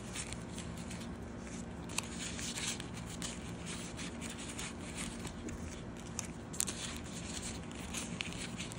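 Paper card envelopes scraping and rubbing against the thin fabric of a small zippered wallet as they are pushed in one after another: a soft rustle broken by a few sharp clicks.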